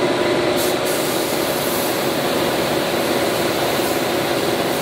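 Steady hiss of a compressed-air spray gun spraying finish onto wooden furniture, over the constant hum of a spray-booth exhaust fan.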